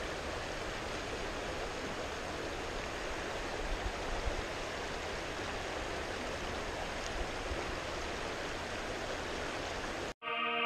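Steady rush of water flowing through a spillway. It cuts off suddenly near the end as music starts.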